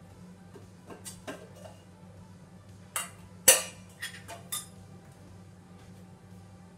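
Kitchen utensils clinking against a dish: a few light taps about a second in, then a cluster of sharper clinks, the loudest about three and a half seconds in.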